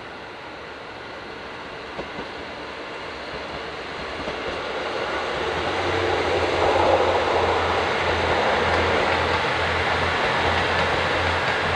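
Diesel train approaching and growing steadily louder over about six seconds, then running close by with a low, pulsing engine throb under the running noise.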